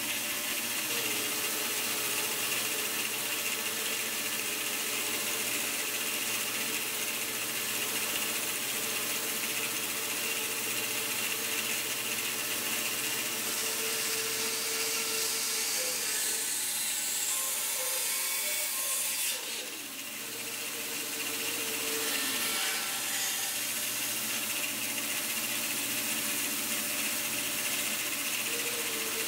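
Bandsaw running steadily, its blade cutting through small blocks of pine, with a brief slight drop in level about two-thirds of the way through.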